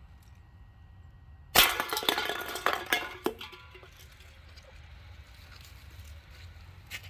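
A sharp hit on a set of soda cans standing as bowling pins, followed by about a second and a half of cans clattering and clinking as they fall and roll.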